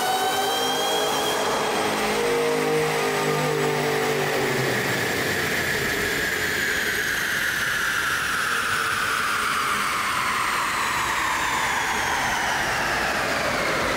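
Shelby GT500's supercharged V8 under load, its supercharger whine climbing and then winding down slowly over about ten seconds as the revs fall. A lower engine note fades out in the first few seconds.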